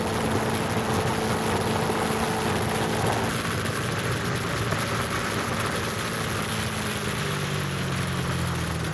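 An engine running at a steady speed, its hum holding an even pitch throughout.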